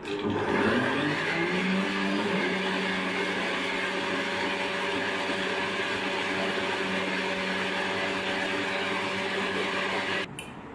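Countertop blender with a glass jar running, blending chocolate cake crumbs with cream into a thick smooth mix. The motor rises in pitch over the first couple of seconds as it spins up, runs steadily, then switches off near the end.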